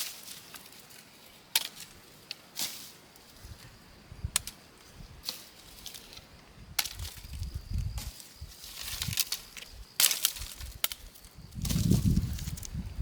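Irregular sharp chopping strikes of a hand tool, about eight spread out, with duller thuds and handling noise between them that grow heavier near the end.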